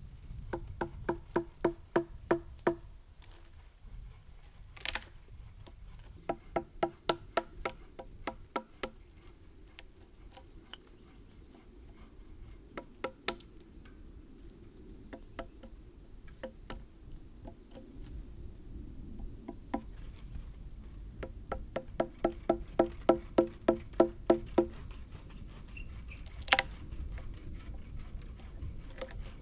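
Hammering on wood: bursts of quick, ringing knocks, about four a second, with a couple of sharper single cracks between them.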